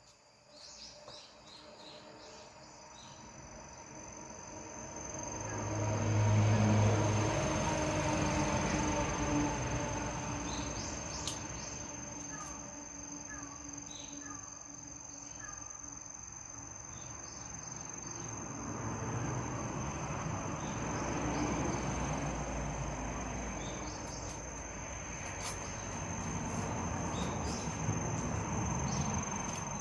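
Insects, cricket-like, trilling as one steady high tone over a low outdoor rumble that swells and fades twice. A few faint short chirps in the middle.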